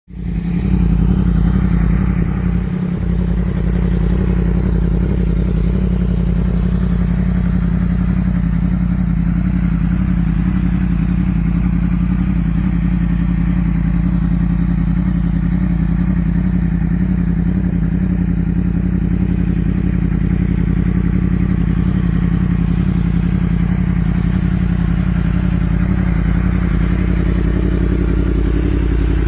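2016 Yamaha YZF-R1M's crossplane inline-four idling steadily through an Akrapovič exhaust. The sound comes in suddenly and runs slightly higher for the first few seconds before settling into an even idle.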